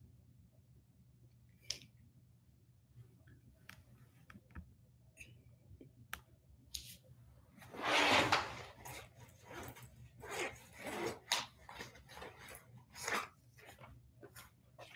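Handling noises: rustling and light knocks as a backpack is reached into and a notebook is taken out and set on a small table, with a louder rustle about eight seconds in.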